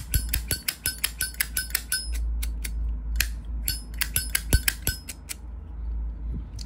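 Metal Zippo lighter cases clicking and clinking many times in quick succession as they are handled, each click with a short high ringing; the clicks thin out after about five seconds.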